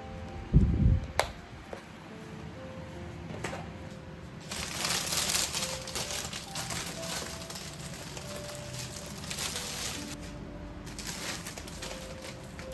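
Plastic grocery bags and packaging crinkling and rustling as groceries are handled and set down on a counter, over soft background music. A low thump and a click come in the first second or so.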